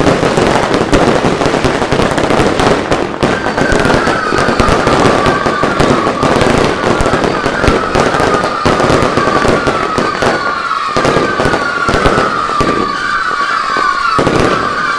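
Consumer fireworks barrage going off in quick succession with dense crackling and banging. From about three seconds in, a string of whistles joins in, each sliding down in pitch and overlapping the next.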